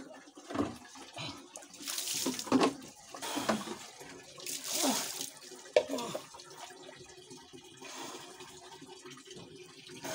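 Water splashing and pouring in several irregular short bursts during a bucket bath, scooped with a plastic dipper and splashing onto a wet concrete floor.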